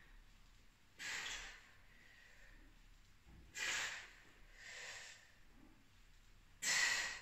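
A woman's hard, sharp breaths with the effort of single-leg pistol squats: four short breathy puffs a couple of seconds apart, the third softer and the last the loudest.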